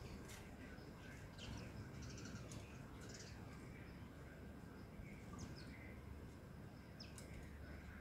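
Faint, scattered high chirps of house sparrows, one short call every second or two, over a steady low background rumble.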